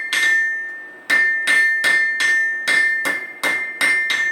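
Blacksmith's hammer striking metal on an anvil, each blow leaving a bright ringing tone. After a pause of about a second, a steady run of blows follows, about three a second.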